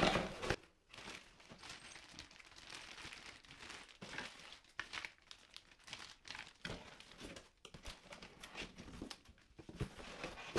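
Packaging being handled and pulled apart while a bidet seat is unboxed: irregular, faint rustling, scraping and crinkling, a little louder in the first half-second.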